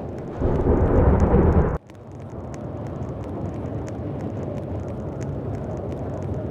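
Steady rumbling noise with faint scattered ticks, and a much louder rush about half a second in that cuts off abruptly after about a second and a half.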